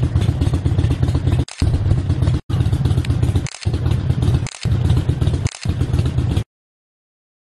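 Motorcycle engines running, heard across several short clips spliced one after another, each splice a brief break in the sound; the sound cuts off suddenly about six and a half seconds in.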